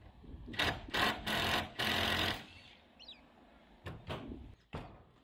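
Scraping and knocking as building materials are handled on a corrugated iron roof: four rough scraping bursts in the first couple of seconds, then a few short sharp knocks.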